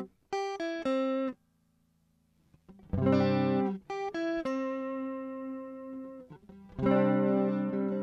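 Electric guitar played through a Twinote BBD Chorus pedal: a quick run of about four single notes, a pause of about a second and a half, then chords and notes left to ring, with a fresh chord struck near the end.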